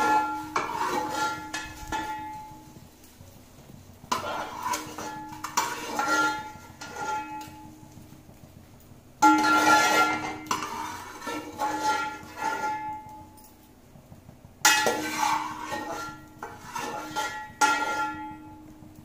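A steel ladle knocking and scraping against a metal cooking pot as fried edible gum is lifted out of the hot ghee, in four bursts of clinks that leave the pot ringing.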